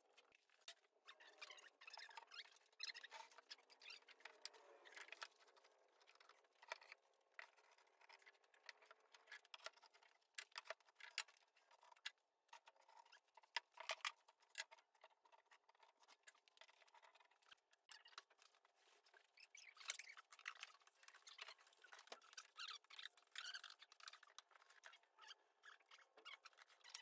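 Faint scraping and squeaky rubbing of glue spreaders working wood glue across a board, with many light clicks and taps scattered through.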